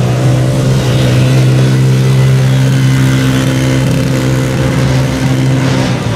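A 50cc mini quad's engine running loud at steady throttle, holding one pitch, then easing off near the end.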